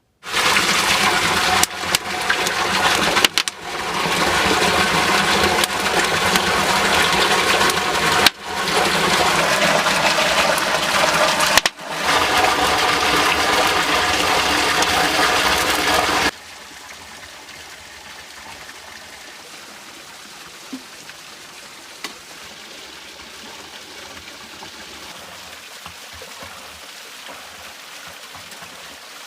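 Rushing stream water, loud and close at first with several abrupt cuts, then a quieter steady flow of water from about halfway through.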